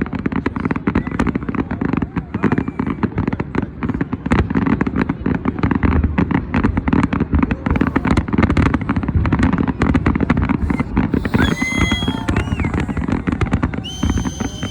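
Fireworks display: a dense, continuous rattle of rapid bangs and crackles, with whistling tones gliding in pitch near the end.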